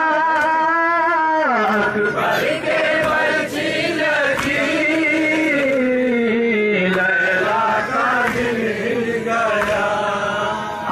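Male voices chanting a nauha, a Shia mourning lament. A lead voice holds a long wavering note, then about a second and a half in drops into a slowly falling melody with other voices joining. Sharp beats of matam, chest-striking, sound through the chanting.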